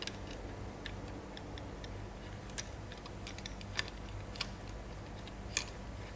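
A handful of light clicks and taps, irregularly spaced about a second apart, as a small electric motor is handled and fitted into an RC helicopter's motor mount, over a steady low electrical hum.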